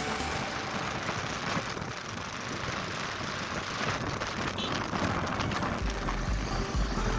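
Steady rain falling, an even hiss, with a low rumble coming in near the end.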